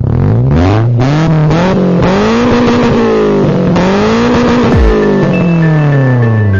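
Car engine revving up and down several times, its pitch climbing and falling in long sweeps, then dropping away near the end. Faint electronic tones come in under it in the last moments.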